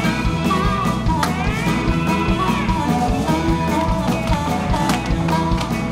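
Music with a steady beat, with held and gliding instrumental tones over it.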